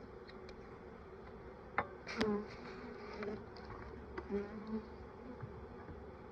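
Honeybees from a freshly installed package buzzing around an open hive. Single bees drone past with rising and falling pitch, and a couple of sharp knocks come about two seconds in.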